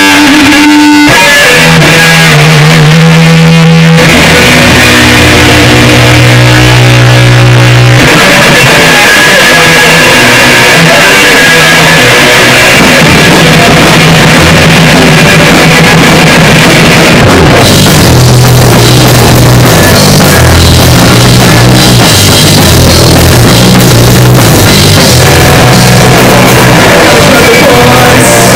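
Live rock band playing loud: electric guitar and bass guitar over a drum kit. It opens with sparse held notes, and the full band comes in about eight seconds in, with the drums busier past the middle.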